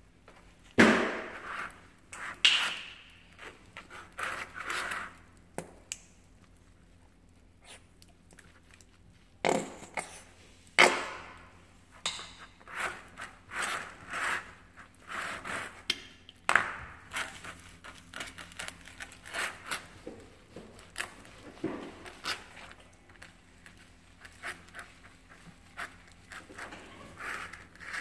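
Hands squishing and smearing shaving cream on a plastic tray: irregular wet squelches and slaps, with a few louder sharp ones.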